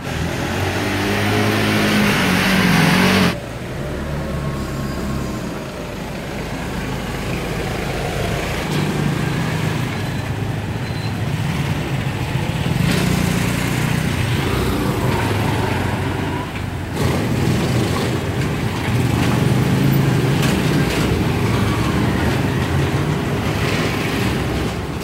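Street traffic: the engines of small delivery motorcycles and three-wheeled cargo vehicles running and moving off, rising and falling as they go. The sound changes abruptly twice, once a few seconds in and again a little past the middle.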